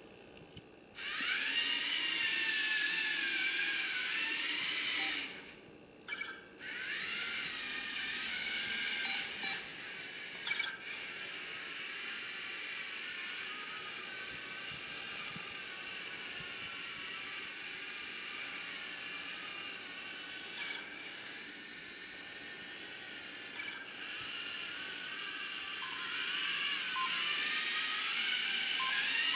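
LEGO Mindstorms NXT servo motors and their gear trains whining as the NXT 2.0 race car drives and steers, the whine rising and falling in pitch with motor speed. It starts about a second in, drops out briefly around six seconds, runs quieter through the middle and grows louder again near the end.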